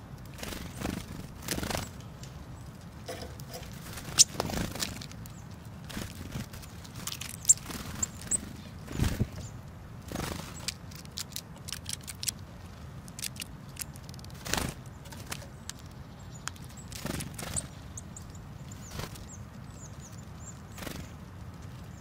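Tits feeding at a pile of sunflower seeds on snow: irregular light taps, clicks and rustles of pecking and hopping among the seeds, with a few short, very high calls.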